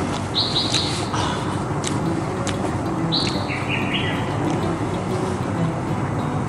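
Small birds chirping: a few short, high chirps, a pair about half a second in and a quick run of them around three to four seconds, over a steady background hiss.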